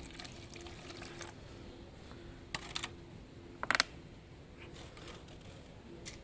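A few light clicks and knocks, the loudest a quick cluster of knocks a little past the middle, over a faint low hum that comes and goes.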